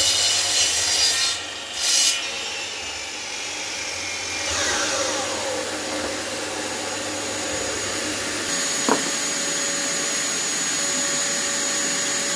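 Electric mitre saw cutting through a merbau hardwood offcut in two short bursts, then the blade spinning down with a falling whine. A dust extractor runs steadily underneath, and there is a single click near the end.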